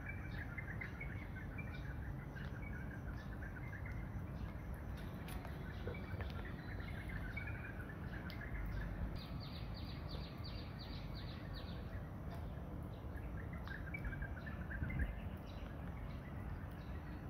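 Tabby kitten licking and chewing at a squeeze-tube cat treat: soft, quick licking clicks, in a fast run about halfway through, over steady background noise with faint scattered chirps.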